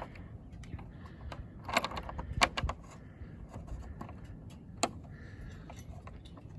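Small metal parts clinking and rattling as spare snowblower shear pins are handled, with a cluster of sharp clicks about two seconds in and a single click near five seconds.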